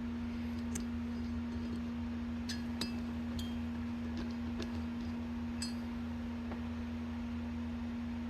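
Small metal carburetor parts (jets and fittings) ticking and clinking now and then as they are unscrewed and set down, over a steady low hum.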